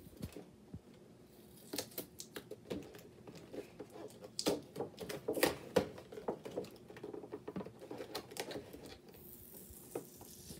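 Fingers picking and scratching at the tape and flap of a cardboard toy box: a run of irregular small taps, clicks and scrapes, busiest in the middle, with a short scraping hiss near the end.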